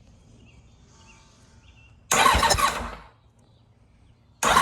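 Kawasaki ZX-7R's electric starter cranking its inline-four engine in two short bursts, one about halfway through and another starting near the end, with the engine turning over in regular pulses but not firing: no spark, the owner finds.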